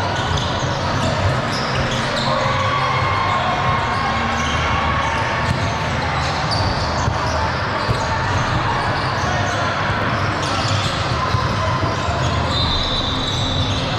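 Basketball being dribbled on a gym floor during a game, with spectators' voices and short high squeaks now and then.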